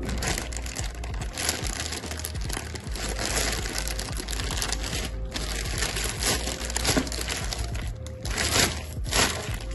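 Plastic courier mailer bag crinkling and rustling as it is torn open by hand, with music underneath.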